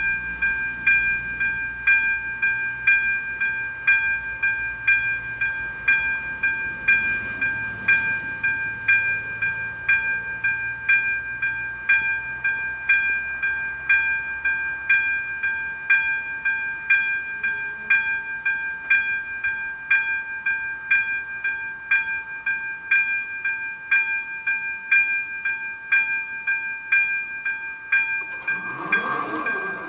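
Level crossing warning bell, likely the ZV-02 electronic bell, striking about once a second with a steady ringing tone. Near the end a train horn sounds briefly over it.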